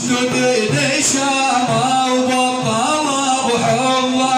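Music from the opening of an Arabic madih praise song: a wavering, gliding melody over a steady held note, with no beat.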